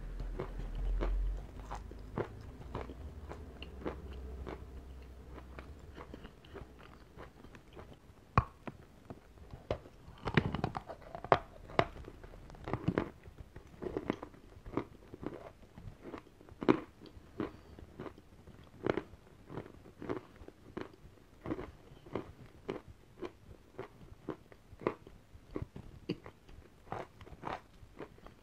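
Bites and chewing of a lump of white chalk: a steady run of sharp, dry crunches, one or two a second, loudest in the middle stretch.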